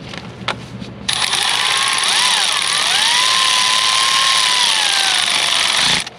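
Power tool running for about five seconds while tightening a bolt, starting suddenly about a second in and cutting off near the end, its whirring pitch wavering up and down.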